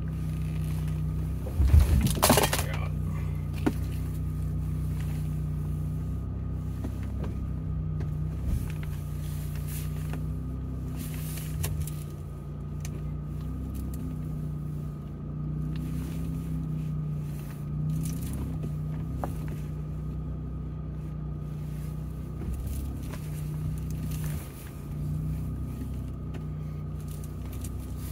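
Jeep Gladiator's engine running steadily at low speed while crawling down a rocky trail, heard from inside the cab, its pitch wavering slightly. A loud knock with a short rattle about two seconds in, and a few lighter knocks later.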